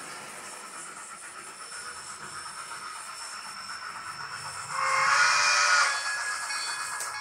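Model Mantua 4-6-2 steam locomotive's Tsunami TSU-2200 sound decoder playing steady steam hiss, then a loud steam whistle blast lasting just over a second, starting about four and a half seconds in.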